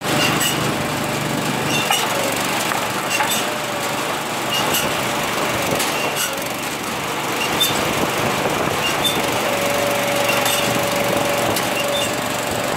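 Engine-driven hydraulic log splitter running steadily, with sharp knocks about every second and a half as it works through logs. A steady whine joins about ten seconds in, as a round is pushed through and split.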